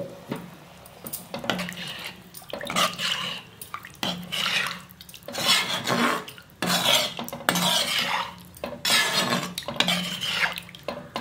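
Stainless steel ladle stirring a thin curry in a metal pan: repeated scraping strokes against the pan, a little more than one a second.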